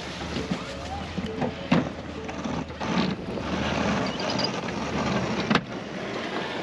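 Truck engine running under heavy wind noise on the microphone, with a few sharp knocks.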